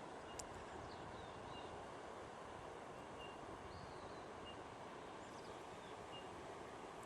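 Faint outdoor ambience: a steady low rush with a small bird giving short, high chirps every second or two and a few thin, sliding call notes.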